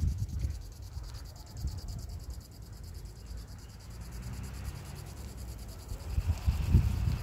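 Low, gusty rumble of wind buffeting the microphone, strongest near the end, over a faint, steady, rapidly pulsing high insect trill.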